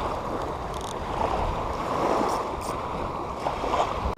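Steady rushing noise of wind and shallow surf at the water's edge.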